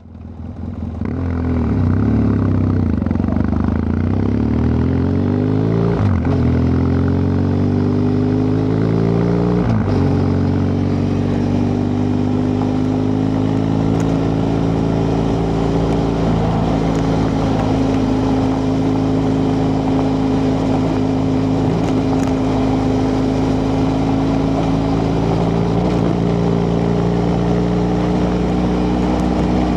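BMW F 800 GS parallel-twin engine under way, pulling up through the gears with the pitch rising and breaking twice, then holding a nearly steady note at cruising speed.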